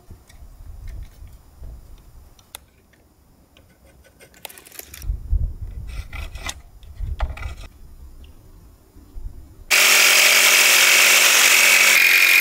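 Low rumbling with a few light knocks, then about ten seconds in an electric power saw starts abruptly and runs steadily and loudly with a high motor whine, cutting wood.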